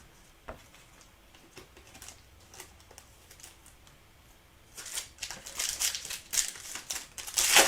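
Trading cards and their pack wrapper being handled. A single click comes about half a second in, then crinkling and rustling from about five seconds in, loudest near the end.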